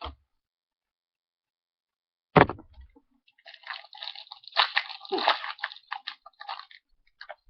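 A sharp thump, then a few seconds of crinkling and crackling from a foil trading-card booster pack wrapper being handled and torn open.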